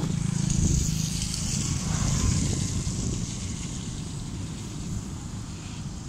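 Low wind rumble on the microphone over a steady rushing hiss from the flooded river, with a vehicle engine humming on the bridge in the first second.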